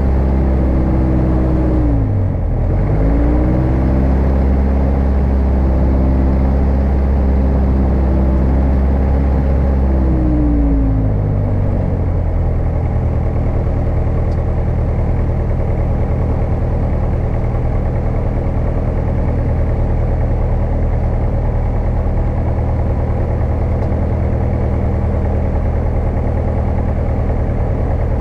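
Single-engine light aircraft's piston engine and propeller, heard from inside the cockpit, running at raised power during the pre-takeoff run-up. Its pitch dips sharply once about two seconds in and recovers, then falls back to a steady lower idle between about ten and twelve seconds in.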